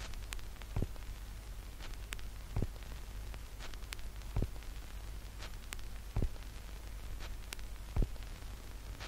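Crackling static: a steady low hum and hiss with about a dozen sharp pops scattered unevenly through it, in the manner of old record or film surface noise.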